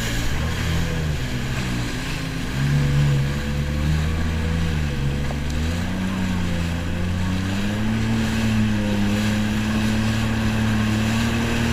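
Jet ski engine running at speed over the water, its pitch dipping and rising with the throttle before settling steady and slightly higher in the second half, with wind noise on the microphone.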